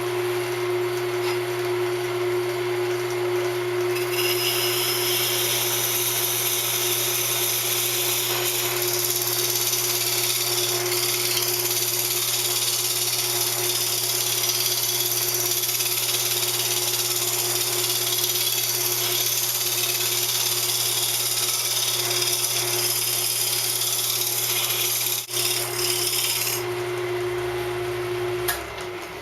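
Wood lathe running with a steady motor hum while a round-nose scraper cuts into the spinning hardwood, a dense scraping noise from about four seconds in until shortly before the end. Near the end the lathe is switched off and its hum drops away as it winds down.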